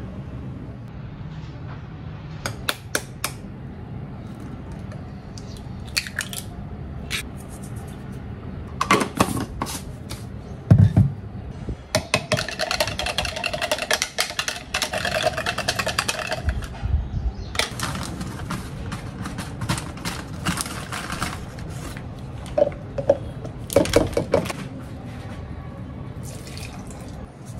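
Kitchen prep sounds: scattered clicks and knocks of utensils and containers, and about halfway through a few seconds of dense, rapid clatter as egg is whisked in a plastic measuring jug.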